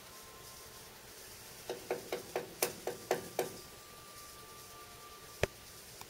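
Hairy woodpecker pecking at wood: a run of about eight irregular taps at roughly five a second, then a single sharp tap near the end.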